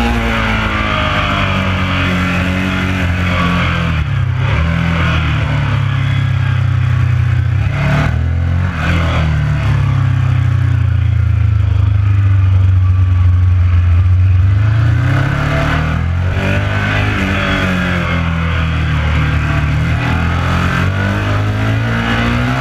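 Ducati 1199 Panigale's Superquadro V-twin heard onboard at speed, with wind rush. The engine note rises and falls through the bends and drops lowest around the middle as the bike slows hard for a tight corner, then climbs again as it accelerates away.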